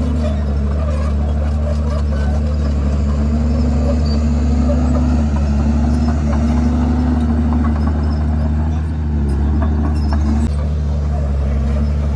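Komatsu D51PX bulldozer's diesel engine running steadily under working load, its pitch rising and falling slightly as the machine works, with a brief dip in level about nine seconds in.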